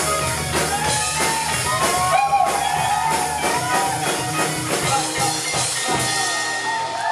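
Live rock band playing, electric guitar over a drum kit. The low end drops away near the end.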